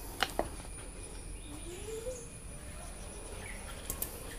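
Light clicks of bicycle pump parts being handled and set down, twice just after the start and twice near the end, over a faint steady high-pitched background tone.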